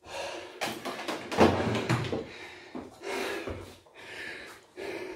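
Handling noise: irregular rustling with short knocks and clicks as someone moves about and handles gear close to the microphone.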